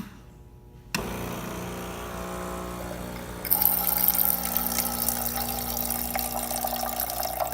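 Gaggia Platinum Vision's vibratory pump starts about a second in with a steady hum, and a couple of seconds later hot water begins rushing out of the steam wand with a loud hissing splash over the pump.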